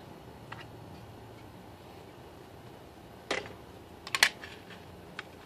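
Plastic toy pistols handled and set down on hard surfaces: a few sharp plastic clicks and knocks. There is a single knock a little after three seconds and a quick cluster of louder clicks just after four seconds.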